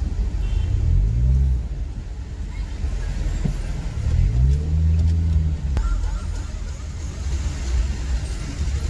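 Car engine and road rumble in slow city traffic; the engine note rises and falls twice, once about a second in and again around four to six seconds in, as the car speeds up and eases off.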